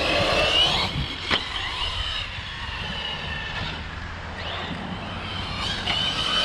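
Electric RC car's motor whining up and down in pitch as the throttle is touched, with a sharp knock a little over a second in.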